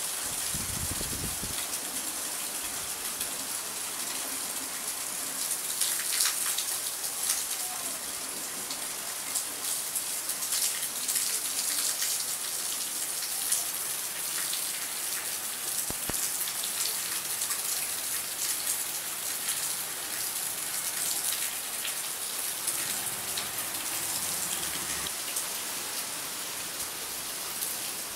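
Steady heavy rainfall, a continuous hiss dense with the patter of individual drops. A brief low rumble sounds in the first second and a half.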